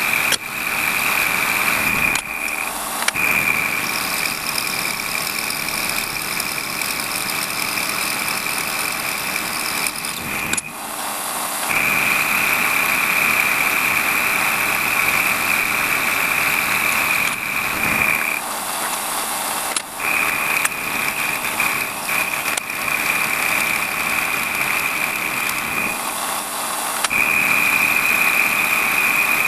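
WARCO lathe running with a cutter in the chuck taking a facing cut on a metal tool post block: a steady high-pitched cutting whine over the machine's running noise, breaking off briefly four times as the cut is interrupted and resumed.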